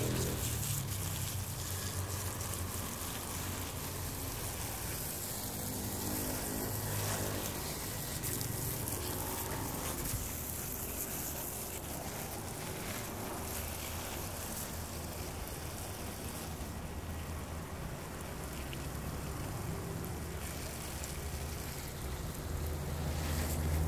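Water spraying from a garden hose onto leafy plants: a steady hissing spatter with a low rumble underneath.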